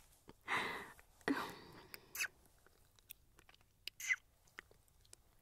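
Close-microphone kissing sounds: a few soft lip smacks and breaths, with sharp little clicks about two and four seconds in.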